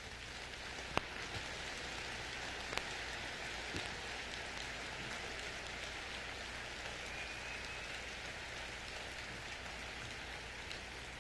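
A steady, rain-like hiss rises in at the start and holds. There are a few sharp clicks in the first three seconds, and a low hum lies underneath.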